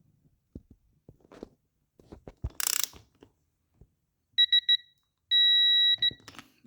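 Digital torque wrench beeping as a triple clamp bolt is tightened: three short beeps, then one long steady beep, signalling that the set torque of 17 newton metres is reached. Before the beeps come light clicks and knocks of the tool on the bolt and a brief rasp.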